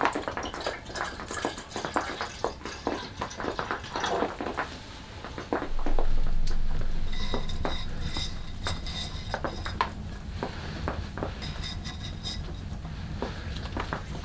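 Water poured from a plastic bottle into a small metal kettle, with clinks and knocks on the metal, then green conifer sprigs pushed into the kettle, rustling and scraping against it. A low rumble sets in suddenly about halfway and is the loudest sound.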